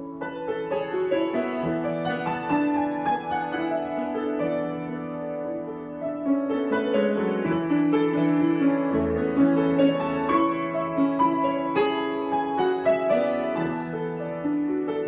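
Solo piano improvisation: a continuous flow of chords and melody notes ringing into one another, getting somewhat louder about six seconds in.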